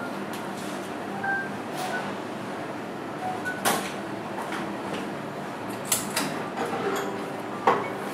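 Room tone with a steady low hum, a few short faint tones, and a handful of sharp clicks and knocks in the second half.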